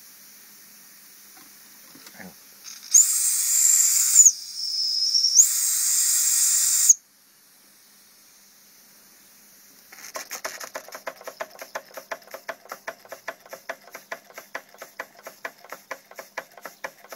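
A toy live-steam stationary engine, which the owner believes to be a Märklin. Its steam whistle blows twice, a shrill tone over hiss, the second blast longer and cutting off sharply. About three seconds later the engine starts running, its cylinder exhausting in a quick, even chuff.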